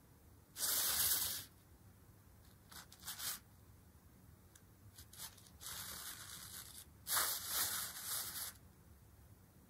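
Crinkly synthetic fabric sheet rustling in bursts as a jute string is dragged across it and pulled under it. There is a loud rustle about half a second in, two short ones around three seconds, a softer longer one around six seconds and another loud one near the end.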